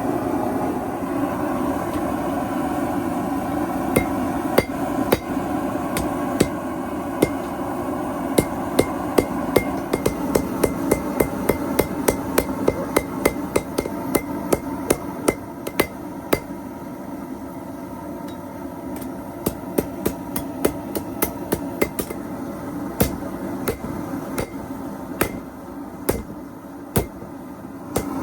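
Hand hammer striking hot steel to forge out a knife blade's bevel, each blow ringing sharply. The blows come scattered at first, then in a fast run of about three a second, then more sparsely, over a steady background rush.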